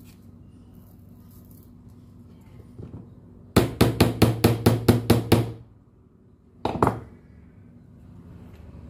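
A quick, even run of about a dozen sharp knocks, roughly six a second, over a low hum, then two more knocks about a second later.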